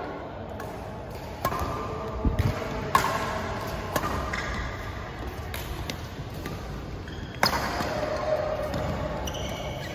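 Badminton rally: rackets striking the shuttlecock with sharp, irregular cracks a second or so apart, several of them louder than the rest.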